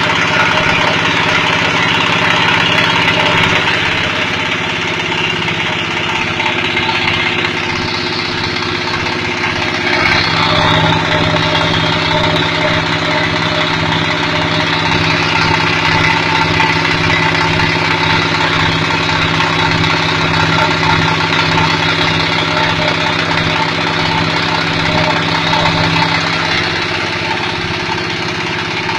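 Fish-feed pellet extruder machine running with a steady mechanical drone. Its pitch and load shift a little a few seconds in, about ten seconds in and again near the end.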